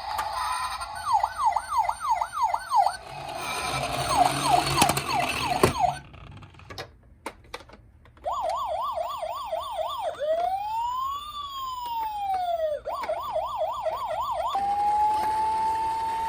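Toy ambulance and police car sirens sounding in turn: quick rising-and-falling yelps about three or four a second, a short break with a few clicks, then one slow wail up and down, more quick yelps, and a held tone that begins to fall near the end.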